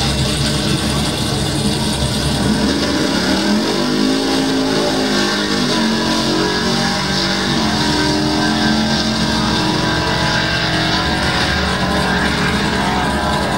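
Race car engines running loudly, as at a drag strip, with one engine note rising about three seconds in and falling away again a few seconds later.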